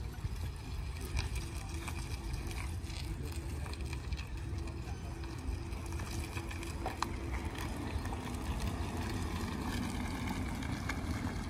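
A Lexus CT 200h hybrid hatchback drives slowly toward and past, its sound growing closer and rising slightly over the last few seconds, over a steady low rumble.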